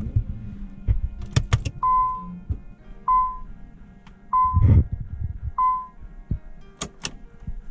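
Dashboard warning chime of a 1992 Nissan 300ZX beeping four times, evenly about a second apart, as the ignition is switched on, with clicks of the key before it and again near the end and one loud thump midway. The key is being cycled on and off to prime the fuel pump before a start.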